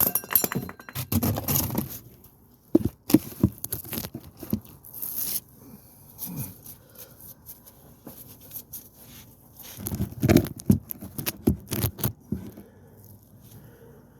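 Irregular clicks, knocks and scraping of hand tools and someone shifting about under a vehicle while working to loosen the oil filter.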